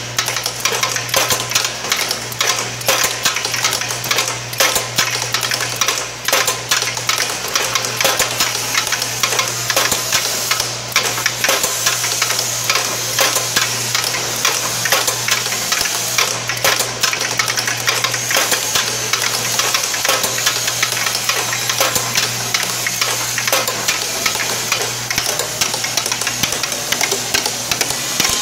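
Automated packet-handling conveyor machine running: a steady low hum under a dense, continuous rattle of fast clicks from its moving parts and actuators.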